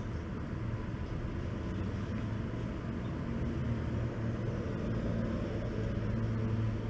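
A steady low hum that grows slightly louder in the second half.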